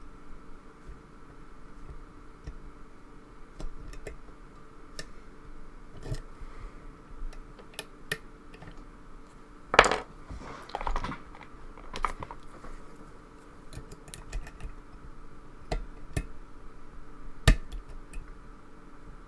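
Small scattered metal clicks and ticks of a lock pick and tension bar working the pins of a pin-tumbler lock, with a louder burst of clicking and clatter about halfway through and one sharp click near the end.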